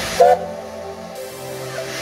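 A short, sharp peep of a steam locomotive's whistle about a quarter second in, from a small tank engine in steam, over steady background tones and hiss.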